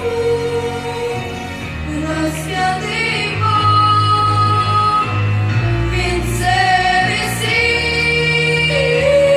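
Slow music from a Christian song's accompaniment, with long held melody notes over sustained bass notes.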